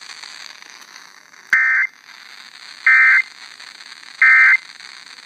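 Three short, loud electronic data bursts from an FM radio's speaker, spaced about a second and a half apart over a faint hiss. They are the Emergency Alert System end-of-message tones that close a broadcast tornado warning.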